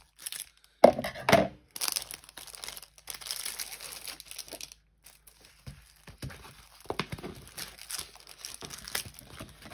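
A clear plastic bag crinkling and rustling as it is handled and opened and the rolled kit is slid out, with a few louder crackles about a second in, then quieter, scattered rustles.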